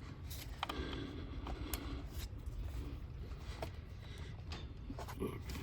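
Scattered light clicks and scrapes of a fuel-line disconnect tool being worked against a quick-connect fitting that won't release, over a steady low hum.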